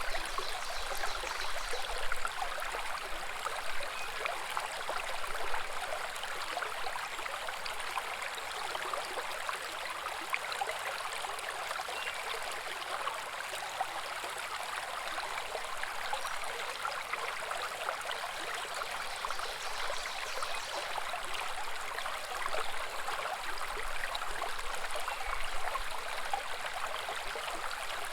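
A small woodland brook babbling steadily over stones, a continuous trickling and gurgling of shallow running water.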